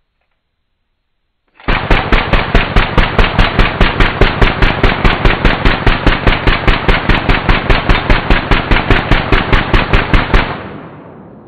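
Belt-fed RPD light machine gun firing one long continuous burst, about five shots a second for some nine seconds, running through a 50-round belt. It starts about two seconds in and stops abruptly, with the report fading out afterwards.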